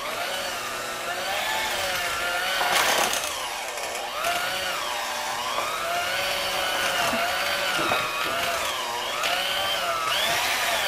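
A 1970s electric hand mixer running steadily, its motor hum wavering up and down in pitch as the beaters cream softened butter with white and packed brown sugar, beating it toward light and fluffy.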